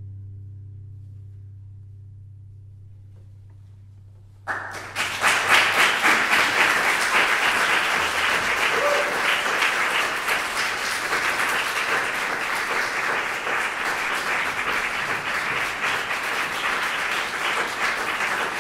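A low plucked cello note rings and dies away, then audience applause breaks out about four and a half seconds in and carries on steadily.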